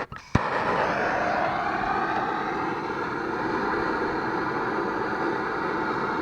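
Handheld gas torch lit with a sharp click about half a second in, then the flame burning with a steady hiss-roar while heating a battery cable terminal for soldering.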